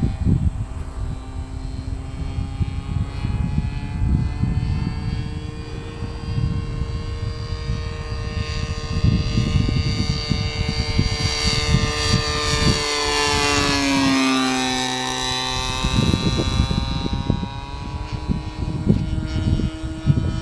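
Radio-controlled scale model Boeing P-26 Peashooter in flight, its motor and propeller making a steady drone. About two-thirds of the way through it passes close, growing louder and then dropping in pitch as it goes by. Low gusty rumbles of wind on the microphone run underneath.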